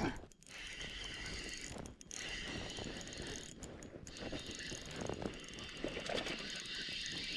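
Fishing reel being cranked, its gears whirring and clicking as line is wound in.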